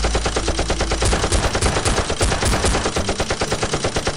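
Rapid automatic gunfire, many shots a second with no break, as in a sustained machine-gun burst.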